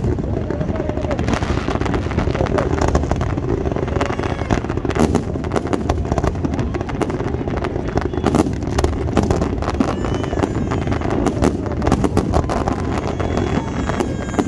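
Fireworks going off in quick succession: a dense, continuous run of bangs and crackles from aerial shells and fountains, with crowd voices underneath.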